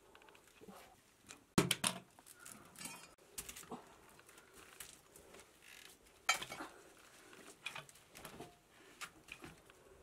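Scattered knocks, clicks and scrapes of stone and a metal machete being handled on a rocky cave floor, with bare feet moving over loose rock; the two loudest knocks come about one and a half seconds in and just past six seconds.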